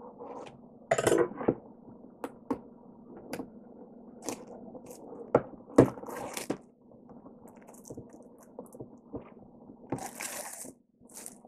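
Plastic shrink-wrap on a cardboard product box being slit with a serrated knife and peeled off: crinkling and crackling film with scattered small ticks and taps, in louder bursts about a second in, around six seconds and near the end.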